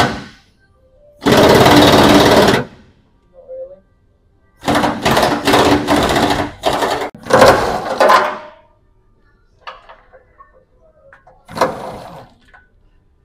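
Pneumatic impact wrench hammering in bursts: one long burst about a second in, a string of short bursts from about five to eight seconds, and a brief one near the end. The bursts are bolts being undone under the truck to drop the fuel tank.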